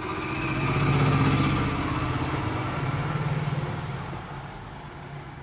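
A motor vehicle's engine passing by, growing louder to a peak about a second in and then fading away.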